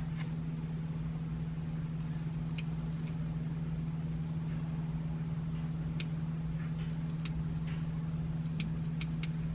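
Chevrolet 283 V8 idling steadily, an even low hum, with a few faint sharp ticks scattered through.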